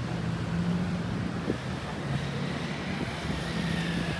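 City street traffic: vehicle engines running with a steady low hum under a haze of road noise, and a faint, slowly falling whine near the end.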